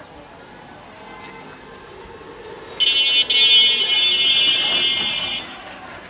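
A vehicle horn sounds one long, steady, high-pitched note for about two and a half seconds, starting about three seconds in, over faint street noise.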